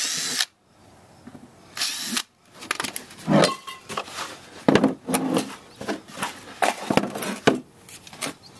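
Power drill with a 1/8-inch bit boring through the plastic panel of a compost tumbler in two short bursts, the first right at the start and the second about two seconds in. Then a few seconds of irregular knocks and clatter as the plastic panel and tools are handled.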